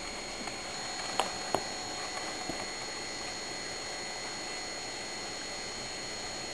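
Quiet room tone: a steady hiss with a faint high whine. Two short clicks come a little over a second in, and a softer one follows at about two and a half seconds.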